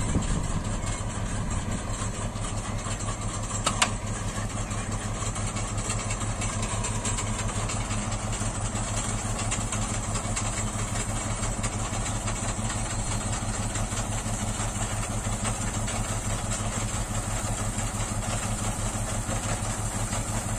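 Old dump truck's engine running steadily while its hydraulic hoist tips the bed loaded with crushed stone. A single sharp click or clank comes about four seconds in.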